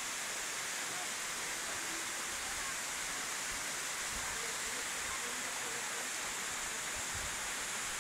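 Steady, even hiss that does not change, brightest in the high range.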